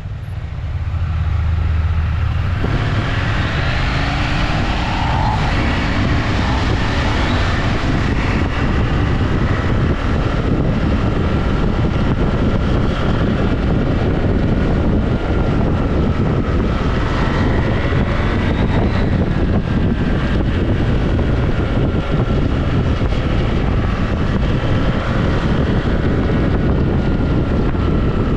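Motorcycle riding: a steady rush of wind over the microphone with the engine running underneath, its faint note rising and falling. The sound builds up over the first couple of seconds, then stays loud.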